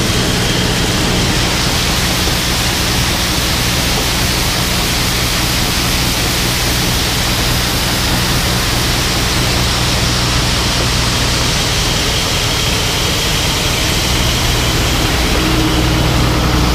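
New Holland combine running steadily while its unloading auger pours a stream of soybeans into a gravity wagon: a continuous hiss of falling grain over the low hum of the combine's engine.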